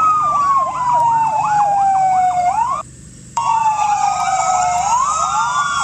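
Electronic fire-engine siren sound: a wail that slowly falls in pitch and jumps back up, layered with a fast warble. It cuts out for about half a second roughly three seconds in, then starts again.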